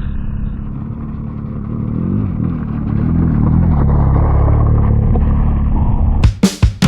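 Motorcycle engine running and revving, its pitch rising and falling a few times and the sound growing louder. Sharp drum hits of music come in near the end.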